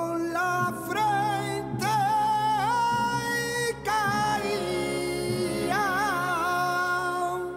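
Closing music with a solo singer holding long, wavering, ornamented notes over a steady accompaniment, the phrase fading out near the end.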